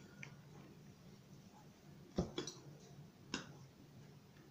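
A metal teaspoon clicking lightly against a dish a few times, the loudest click about two seconds in, over quiet room tone.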